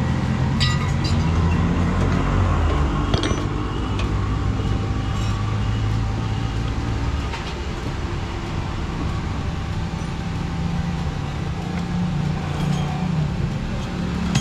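Steady rumble of motor vehicle engines running nearby, with a couple of light metal clinks from hand tools in the first few seconds.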